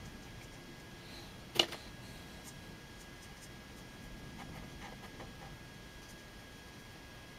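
Faint ticking and scratching of a fine brush working on watercolour paper, with one sharp click about a second and a half in. A faint steady whine sits under it.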